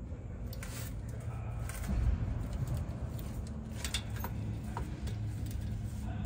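A few faint metallic clicks and taps of hand work on metal parts, over a steady low background hum, with a dull thump about two seconds in.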